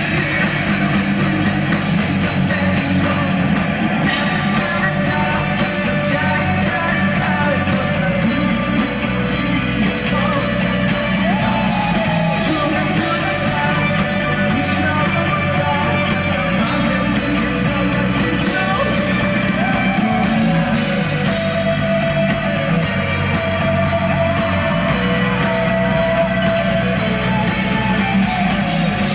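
Live rock band playing: electric guitars, bass guitar and drums, with a male vocalist singing and shouting over them.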